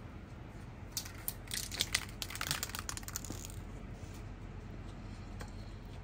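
A quick run of light clicks and crinkling rustles lasting about two and a half seconds, from a spray can and small items being handled and set down on a small rolling cart.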